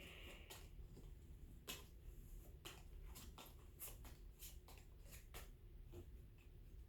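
Near silence with faint, irregular light clicks of trading cards being handled and flipped through.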